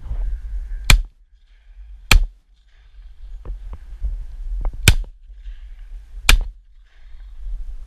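Four shotgun shots, in two pairs of about a second apart each, with a few faint clicks between the pairs.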